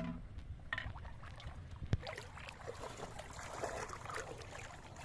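Water splashing and sloshing, with a single sharp knock about two seconds in.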